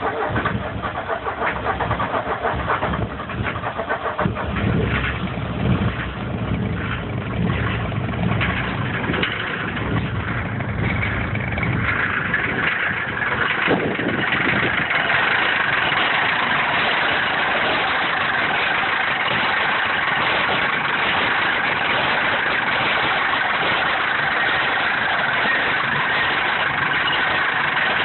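Mercedes-Benz 240D's four-cylinder diesel engine idling roughly and unevenly, with irregular knocks and a low rumble. It becomes steadier from about halfway through. The owner does not know what is causing the rough idle.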